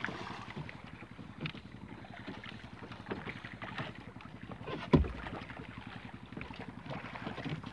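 Water lapping against the hull of a small wooden outrigger boat, with scattered small knocks and one louder thump about five seconds in.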